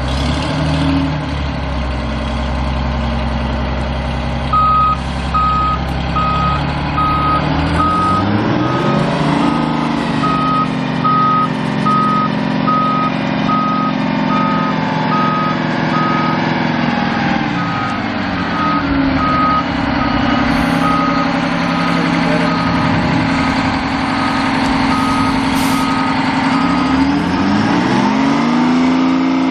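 Euclid R25 haul truck's Detroit Diesel 6-71 two-stroke diesel running, its revs rising and falling several times, the first rise about eight seconds in. A back-up alarm beeps about once a second from about four seconds in until near the end.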